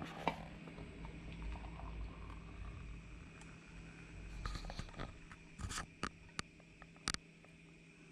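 Thick Greek coffee poured from a small saucepan into a glass cup, a soft low pouring and handling sound, with a few short sharp clicks in the second half.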